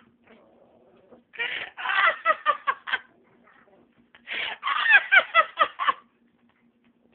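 A person laughing in two bursts of quick ha-ha pulses, about a second and a half apart, over a faint steady hum.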